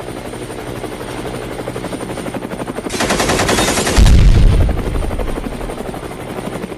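Sound-effect attack helicopter with its rotor chopping in a rapid, even beat. Machine-gun fire rattles about three seconds in, then a loud deep explosion about a second later is the loudest moment and dies away over a couple of seconds.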